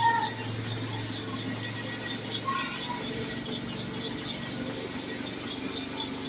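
STAREX hair clipper blade being rubbed back and forth on a sharpening stone, a steady scraping, as its cutting face is honed flat.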